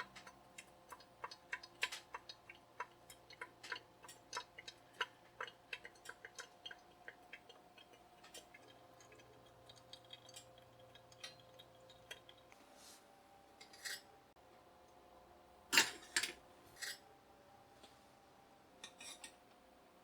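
Faint, irregular ticking and clicking from a Wear-Ever aluminium Dripolator while coffee drips through it, thick at first and then thinning out, with one louder knock about three quarters of the way through.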